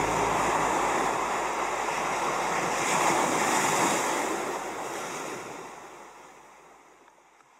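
Surf breaking and washing up a beach, swelling about three seconds in and then fading out steadily to nothing. A last low note of the music dies away in the first second.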